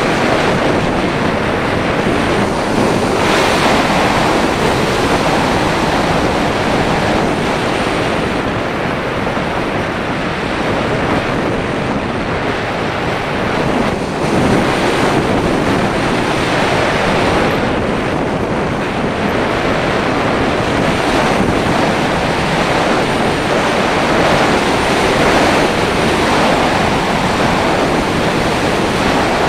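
Air rushing over an action camera mounted on the nose of an unpowered slope-soaring glider in flight: loud, steady wind noise with no motor, swelling and easing a little.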